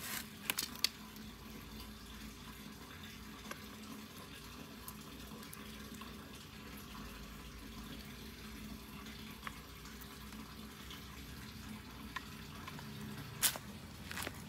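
Faint steady background hiss with a few light clicks as a brushcutter's throttle cable and its fittings are handled, and one sharper click near the end.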